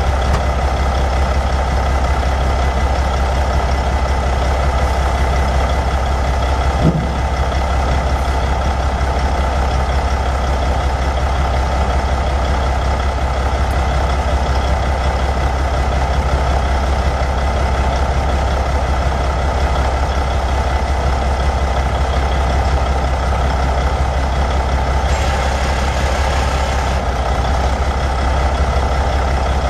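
Caterpillar 3406 14.6-litre inline-six turbo diesel of a Ford LT9000 dump truck idling steadily. There is one brief knock about seven seconds in, and a short hiss lasting about two seconds near the end.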